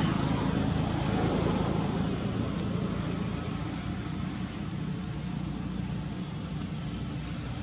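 Steady outdoor background noise: a low rumble with a hiss over it, like distant road traffic, with a few faint high chirps.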